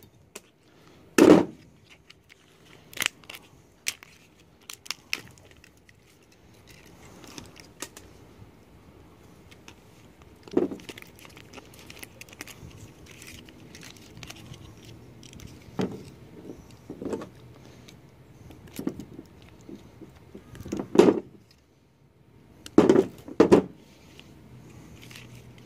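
Plastic housing of a CRT television's deflection yoke cracking and snapping as it is pried and broken apart by hand and with a hand tool, with small metal clicks from the tool and clips. The snaps come irregularly, a dozen or so, the loudest about a second in and a pair near the end.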